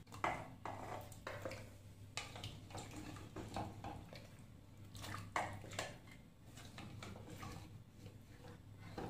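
A ladle knocking and scraping against the inside of a pressure cooker as cooked beef trotters are lifted out of their broth, with liquid dripping and splashing back into the pot. The knocks come irregularly, a few seconds apart.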